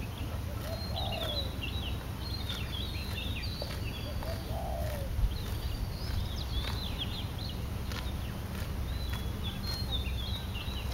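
Small birds singing: quick, high chirping and twittering phrases that come again every second or two, with a lower call twice, over a steady low rumble. A few sharp clicks, the loudest just past the middle.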